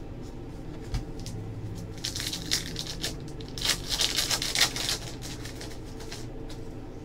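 A trading-card pack wrapper being torn open and crinkled, a crackly rustle lasting about three seconds, with a small knock about a second in.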